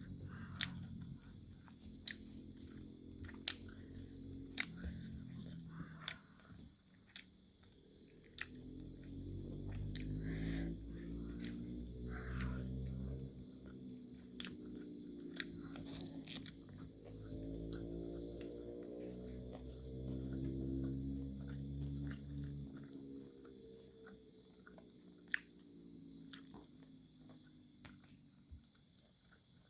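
Chewing and mouth clicks from eating fried pork, close to the microphone, over a steady high chirring of crickets. A low hum swells and fades underneath.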